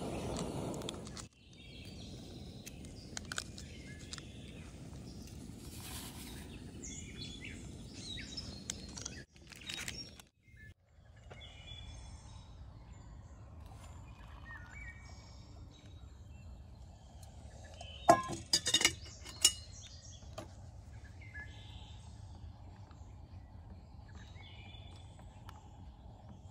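Canister camp stove burner hissing, cut off suddenly about a second in, then quiet woodland background with birds chirping. A few sharp clinks around eighteen to nineteen seconds in.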